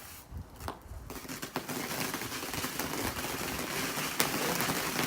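Ground firework burning with a dense crackling hiss that starts about a second in, with a few sharp pops.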